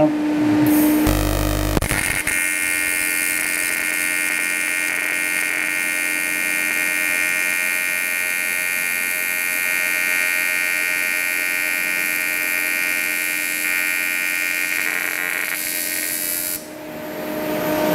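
AC TIG welding arc on aluminium from a Parweld XTM211Di inverter welder: the arc strikes about a second in, then gives a steady buzz that stops about a second before the end. It is running on the machine's auto-set AC parameters, which the welder finds a little hot.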